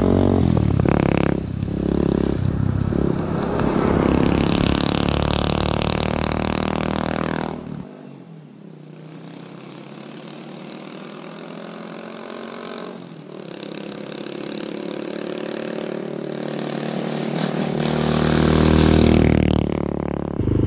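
The 185cc engine of a home-built reverse trike passing by on the road: loud at first with its pitch sliding down as it goes away, quieter through the middle, then growing louder again as it comes back, loudest near the end.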